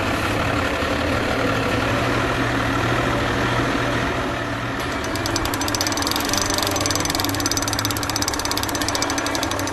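Boat motor running steadily with a low hum. From about five seconds in, a fast, even clicking joins it, fitting a trolling reel's clicker or drag as a fish takes line.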